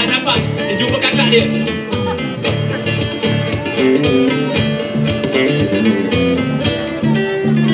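Live band music from street buskers playing an upbeat Malay song: guitar and a tambourine keeping a steady beat, with voices over the music.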